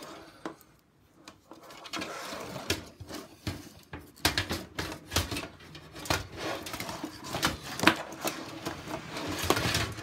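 Handling noise from a computer power supply unit and its attached cables: rustling with scattered knocks and clicks, the sharpest about eight seconds in.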